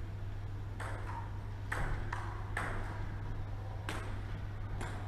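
Table tennis ball being hit and bouncing: about six sharp, irregularly spaced clicks over a steady low hum.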